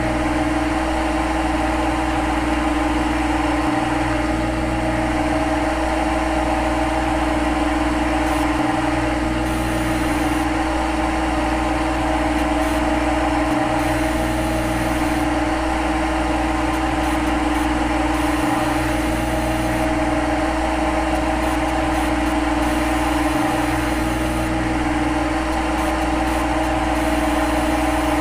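Simulated CNC lathe machining sound from a phone lathe-simulator app: a steady synthetic hum of spindle and cutting with two held tones, while the tool cuts the profile in a G73 roughing cycle. The low hum drops out briefly about every five seconds, as a looped sound does.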